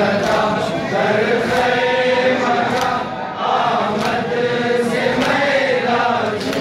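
A crowd of men chanting a Persian noha, a Muharram lament, together in slow sung lines. Sharp slaps land on the beat about every second and a bit, typical of matam chest-beating keeping time with the chant.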